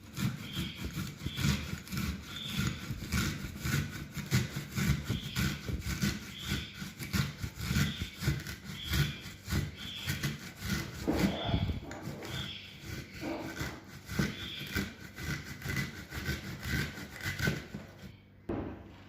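An onion being grated on a fine hand grater: a long run of rhythmic rasping strokes that stops just before the end.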